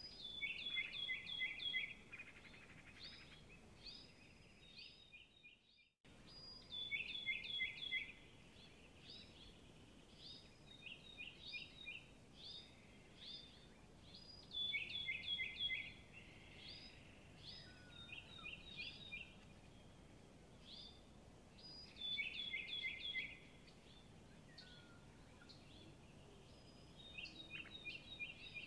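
Small songbirds chirping in quick runs of short high notes, repeated every few seconds over a low background hiss. The sound cuts out briefly about six seconds in.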